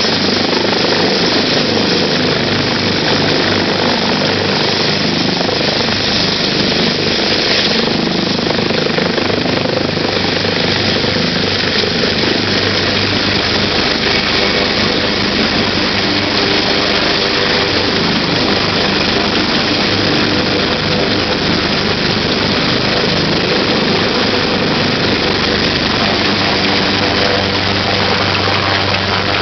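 AgustaWestland AW139 twin-turbine helicopter lifting off, hovering and climbing towards the listener. Its turbines and rotor make a loud, steady rush with a constant low hum underneath.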